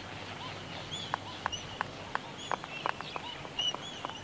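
Bird colony background: short high chirping calls repeating every half second or so, with irregular light clicks.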